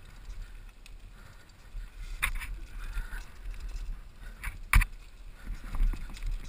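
Mountain bike rattling down a dirt singletrack: tyre and trail noise with low wind rumble on the mic, broken by a few sharp clacks from the bike over bumps, the loudest a little before five seconds in.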